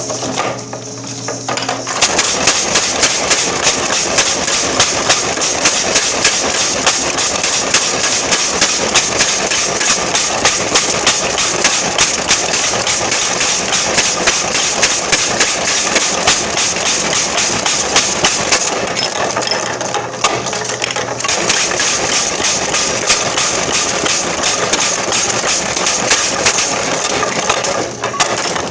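Power hammer striking hot steel between fullering dies, the steel set on a tapered drift: a rapid, even run of blows with the machine running underneath, starting about two seconds in and easing briefly about two-thirds of the way through.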